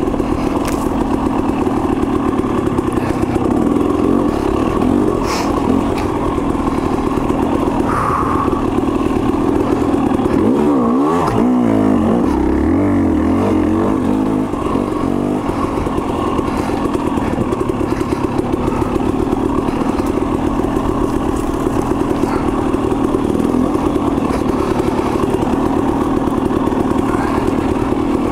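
KTM 300 XC-W TPI single-cylinder two-stroke dirt bike engine running under way, its pitch rising and falling with the throttle for a few seconds around the middle. A couple of brief knocks come in early on.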